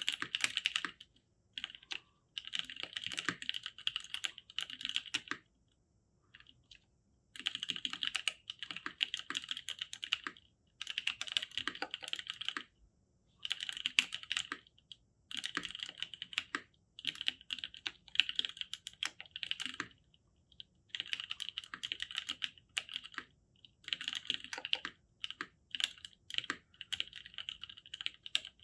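Mechanical keyboard with NovelKeys Cream linear switches, lubed with Krytox 205g0, and GMK Signal keycaps, being typed on in quick runs of keystrokes. Short pauses fall between the runs, one of about two seconds a fifth of the way in.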